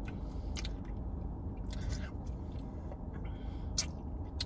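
Mouth sounds of someone tasting a milkshake through a straw: a few short, sharp sips and lip smacks spaced about a second apart, over a steady low rumble in the car cabin.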